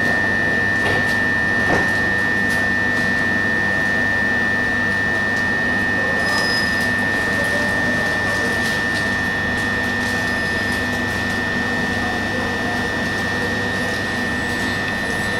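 Southeastern electric multiple unit standing at the platform, its onboard equipment giving a steady high-pitched whine over a low hum.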